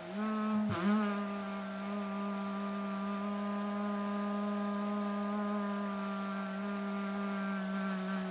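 A man's long, steady, low moan, held at one pitch for about seven seconds after a short break to catch his breath about a second in.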